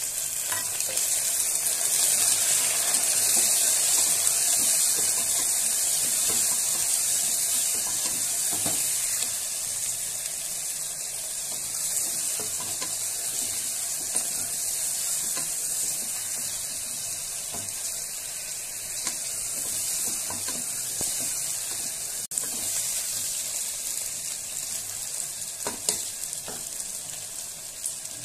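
Pieces of mutton sizzling in hot oil with fried onions in a pressure cooker pot, stirred with a wooden spoon. The sizzle is loudest in the first few seconds after the meat goes in and slowly eases, with a few light knocks of the spoon against the pot.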